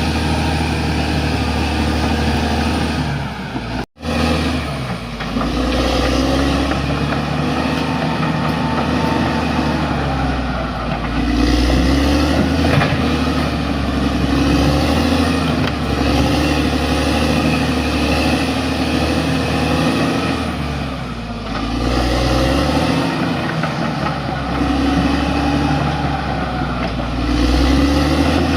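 Bulldozer's diesel engine running hard and steadily, its pitch rising and falling as it works. The sound cuts out for an instant about four seconds in.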